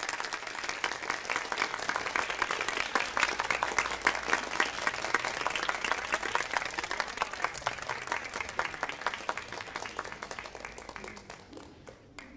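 Studio audience applause: many people clapping densely, swelling a few seconds in and then fading out near the end.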